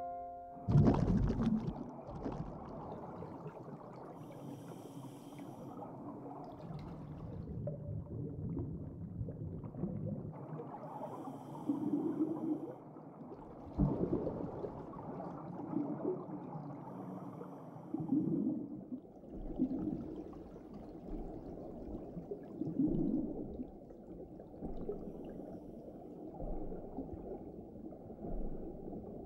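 Muffled underwater ambience: a low rumbling wash with gurgling, bubbly swells every couple of seconds, as air bubbles rise from a diving helmet. It opens with a sudden loud whoosh about a second in.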